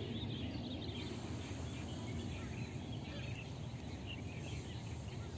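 Outdoor ambience: a steady low rumble with many small birds chirping high and briefly throughout.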